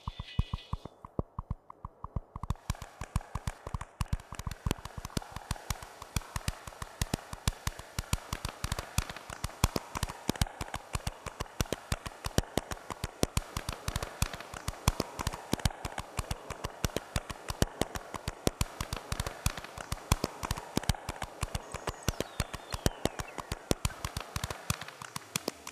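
Experimental electronic score: a dense, irregular stream of sharp clicks, several a second, over a steady hiss, with a falling tone sliding down near the end.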